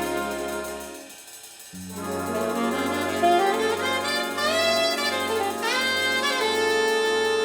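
Brass-toned instrumental music: a held chord that stops about a second in, then after a brief pause new music starts with a pulsing bass line and quick rising runs of notes.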